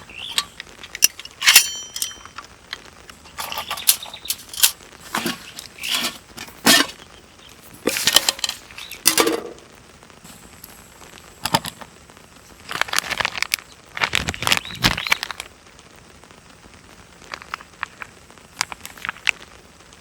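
Hands handling camping gear: irregular clicks, knocks, clinks and short rustles, spaced out with quiet gaps between them.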